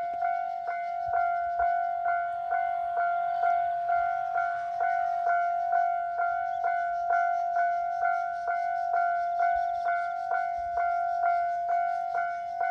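Japanese railway level-crossing warning bell ringing, a single bright electronic ding repeated evenly about twice a second: the signal that a train is approaching and the crossing is closing.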